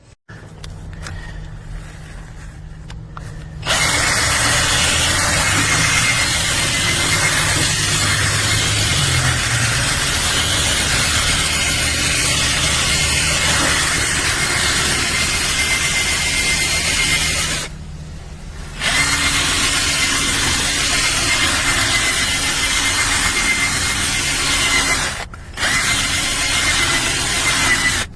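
A handheld cordless power tool's electric motor running with a steady high tone. It runs softly for the first few seconds, then at full speed for long stretches, stopping for about a second around 18 seconds in and dropping out briefly again near the end.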